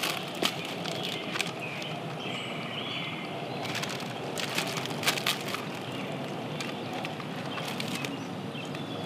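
Plastic Oreo cookie package crinkling in short rustles, several times, as it is opened and handled, over woodland ambience with faint bird chirps.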